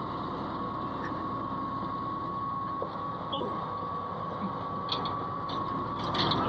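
Komatsu bulldozer running and travelling on its steel tracks: a steady engine rumble under a constant high whine, with scattered clanks and squeaks from the tracks, a little louder near the end.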